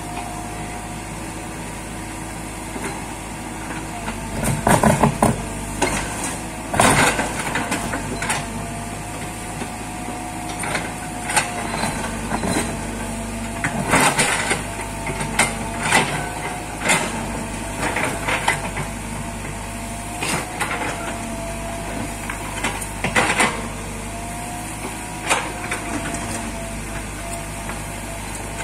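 Mini crawler excavator running, its engine and hydraulics droning steadily with a whine that wavers in pitch as the boom and bucket move. Sharp clanks and knocks come over it at irregular intervals as the steel bucket scrapes and breaks up stones and packed earth from the road surface.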